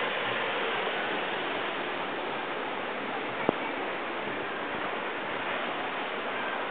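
Steady rush of churning water in a river rapids ride channel, with one sharp click about halfway through.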